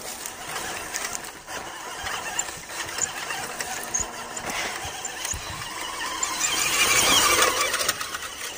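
Electric drive motor and gearbox of a WPL B-1 1:16 RC truck whining as it drives over dirt, twigs and pine needles, with the tyres crackling on the debris. It grows loudest about seven seconds in.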